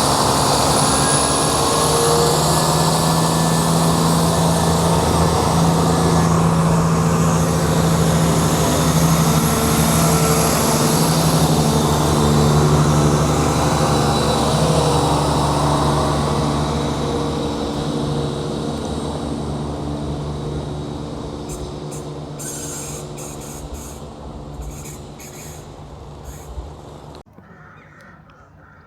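Diesel train engine running loud and steady at close range, then fading away as the train moves off; the sound drops away abruptly near the end.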